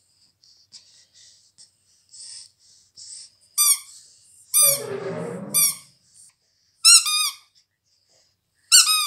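Small rubber squeaky toy squeezed by hand, giving five short, high squeaks spread over the second half, after a few seconds of faint soft rustling.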